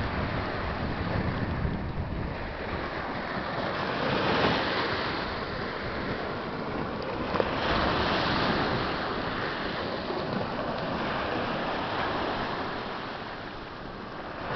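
Small waves breaking and washing up a pebble beach, the rush of surf swelling twice, about four and eight seconds in. Wind buffets the microphone throughout.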